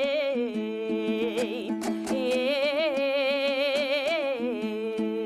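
A singer holding long, wavering wordless vowels in Kazakh zhyr-terme style over steady dombra strumming: two drawn-out phrases with a short break about two seconds in, then the dombra continues alone near the end.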